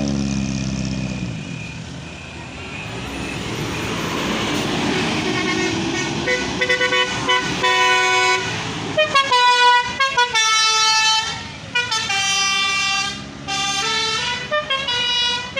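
A bus's 'telolet' horn, a set of multi-tone air horns, playing a tune of quick stepped notes, loud and repeated from about five seconds in. At the start a vehicle's engine passes, its pitch bending.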